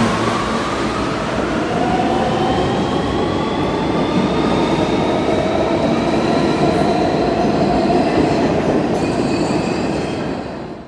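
New York City subway train pulling out of the station past the platform: rumbling wheels on the rails and a motor whine that climbs steadily in pitch as it gathers speed. The noise falls away near the end as the train goes off into the tunnel.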